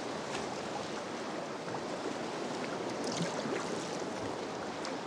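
Sea water washing and sloshing around a sea kayak as swell picks up, with a few small splashes.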